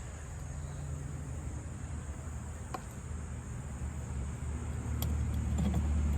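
Steady low engine hum that grows louder about four seconds in, with a couple of light clicks.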